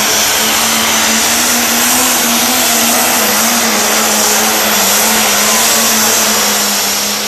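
A New Holland Limited Pro Stock pulling tractor's turbocharged diesel engine running flat out under load as it drags the sled. The engine note holds steady, with a steady high whine above it.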